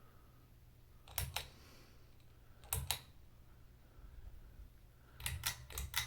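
Ceiling fan pull-chain switch clicking as the chain is pulled and let go, in close pairs about a second in and again near the middle, then a quicker run of several clicks near the end. A faint low hum runs underneath.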